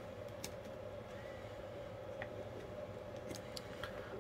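A few faint, scattered clicks and ticks of a small screwdriver tip probing a drill trigger switch's spring-loaded wire connector to release the wire, over a steady low background hum.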